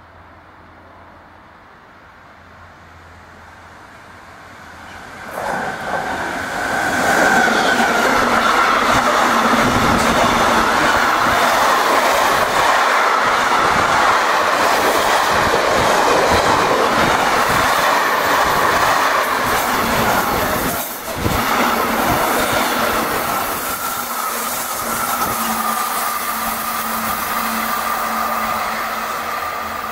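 Intermodal freight train of trailer-carrying wagons approaching and passing close by on the rails: the sound swells from about four seconds in to a loud, continuous rumble and clatter of wheels with a steady high tone through it, dips briefly about two-thirds through, then eases off as the train runs away.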